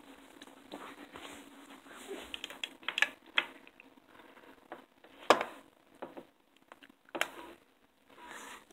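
Handling noise of a phone: scattered irregular clicks, knocks and rustles as it is picked up and moved about, with a few sharper knocks about three, five and seven seconds in.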